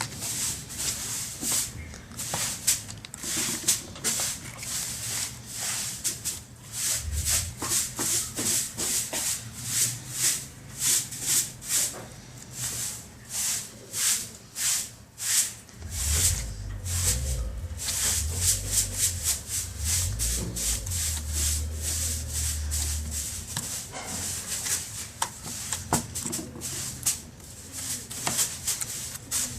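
Glitter slime being squeezed and stretched by hand: a long run of short, crisp squishing sounds, several a second. A low rumble joins in about halfway through.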